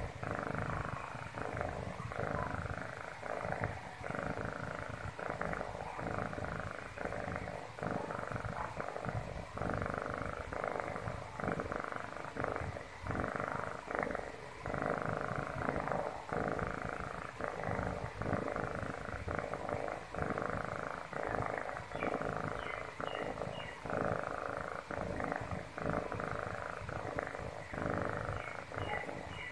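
Domestic kitten purring steadily and close up, the purr rising and falling in regular pulses with each breath in and out.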